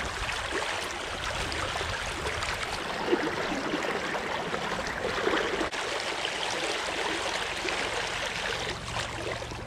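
Stream water running steadily, an even rush with a few brighter gurgles.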